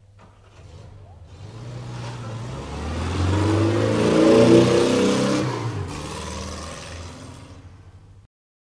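Logo-intro sound effect: a swelling rumble and whoosh with low, shifting pitched layers that builds to a peak about four and a half seconds in, then fades and cuts off suddenly near the end.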